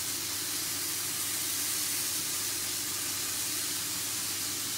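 Steak frying in a pan, a steady sizzle.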